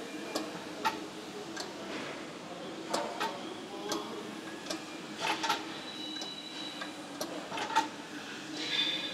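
Sharp clicks and light metallic clanks at irregular intervals, roughly one a second, from a seated row machine being worked through reps, over a steady low hum.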